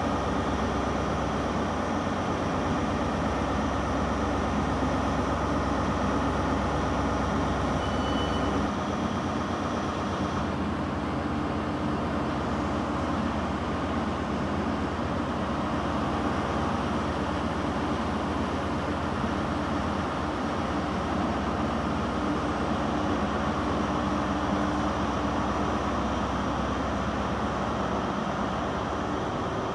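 A diesel train's engines running: first a CrossCountry Voyager's underfloor diesels, then, after a change about ten seconds in, a GWR HST's Class 43 power car engine as the train pulls away.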